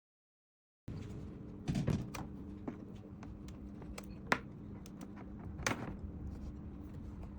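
A handful of scattered light clicks and knocks over a steady low hum, after a moment of silence.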